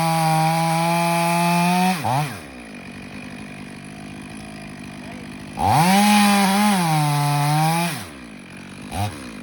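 Chainsaw cutting into the trunk of a large maple at full throttle, then dropping to idle after about two seconds. About halfway through it revs up and cuts again for about two seconds, falls back to idle, and gives one short blip of the throttle near the end.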